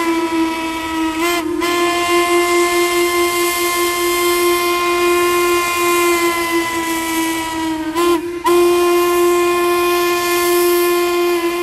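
The steam whistle of Chesapeake & Ohio #1309, a 2-6-6-2 Mallet steam locomotive, blowing long, steady blasts with two brief breaks, about a second in and about eight seconds in.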